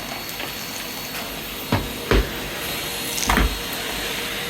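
Numatic tub vacuum cleaner running steadily, with a few hard knocks: two about two seconds in and two more just past three seconds.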